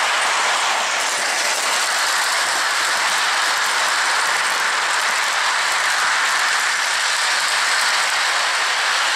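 Model train, a J-Class steam locomotive pulling freight cars and a caboose, running along floor track: a steady, even running noise of motor and wheels on the rails.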